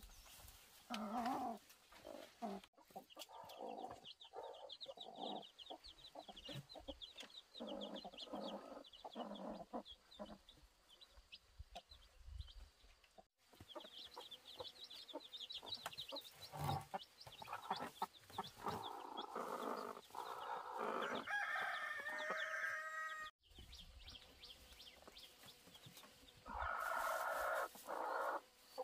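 Domestic chickens clucking and calling, with a rooster crowing about three quarters of the way through. The sound breaks off sharply a few times.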